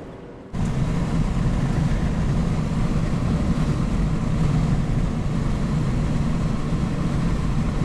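Car driving at speed: steady road and wind noise heard from inside the cabin, cutting in suddenly about half a second in.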